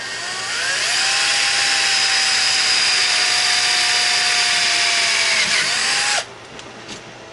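Power drill boring a hole through the RC truck's steel chassis rail: the motor winds up in pitch, runs steadily with its pitch sagging slightly under load, speeds up briefly near the end, then stops abruptly about six seconds in.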